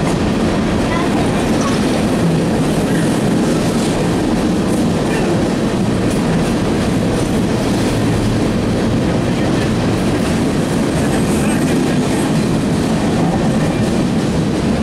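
Empty Union Pacific coal train's open-top hopper cars rolling past, a steady rumble of steel wheels on the rails.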